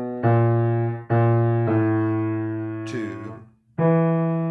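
Piano playing the bass voice part of a choral anthem as a rehearsal guide, one low note at a time in a slow swing feel. Each note starts sharply and fades before the next, with a short break and a brief sliding sound about three seconds in.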